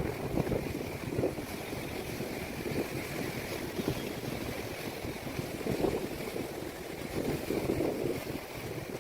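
Sea waves washing onto a sandy beach in an irregular rise and fall, with wind buffeting the microphone.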